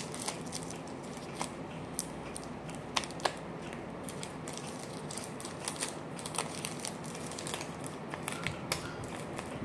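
Thin clear plastic bag crinkling and rustling in short, irregular crackles as it is handled and worked open, with a couple of sharper clicks about three seconds in.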